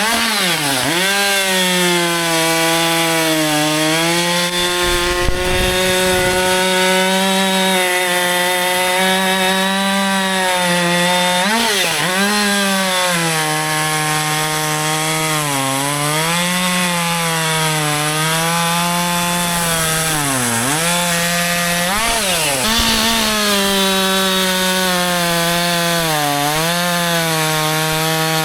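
Husqvarna 564 XP two-stroke chainsaw running at full throttle through a cut in wood. Its pitch dips every few seconds as the chain loads in the cut, then climbs back to high revs.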